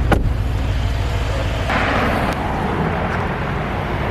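Mercedes-AMG GLE 63 S Coupe's twin-turbo V8 exhaust running with a low, steady drone. There is a sharp click near the start and a brief rush of higher noise about two seconds in, after which the drone eases a little.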